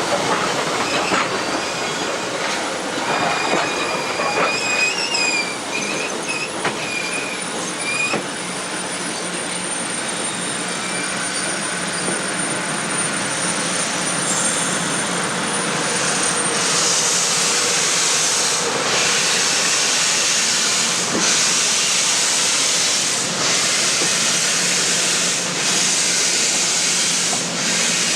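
Railroad train rolling slowly with high-pitched, wavering wheel squeal. About halfway through the squeal gives way to a loud, steady hiss that drops out briefly about every two seconds.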